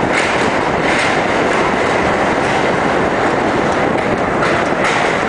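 R-32 subway train running through a tunnel, heard from inside the car: a steady loud rumble of steel wheels on rail, with a few sharper clacks over rail joints.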